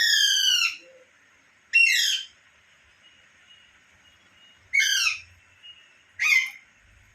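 Pet parrot giving four loud, harsh calls, each about half a second long and falling in pitch: one at the start, one about two seconds in, and two close together near the end.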